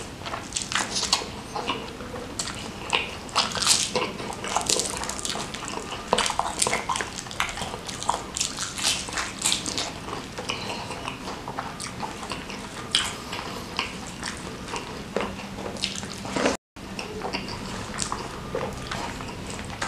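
Close-miked chewing and crunching of crispy fried omelette with sambal and rice: irregular crisp crunches and wet mouth sounds. The sound cuts out completely for a moment about three-quarters of the way through.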